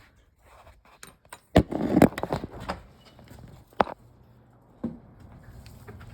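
Knocks and rattling clatter of a portable generator being tilted and wheeled on its frame, the loudest clattering bunch about a second and a half in, followed by a few single knocks.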